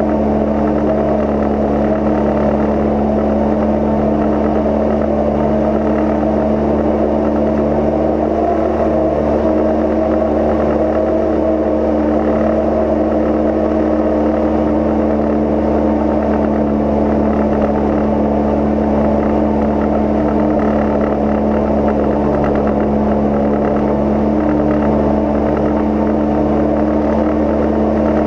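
Cozy Mk IV light aircraft's engine and pusher propeller droning steadily in cruise flight, holding one even pitch.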